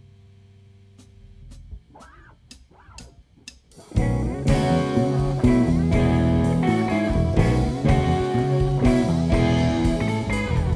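Live rock band with electric guitars and bass. The band crashes in loud and full about four seconds in, after a quiet stretch with a few sharp clicks about twice a second.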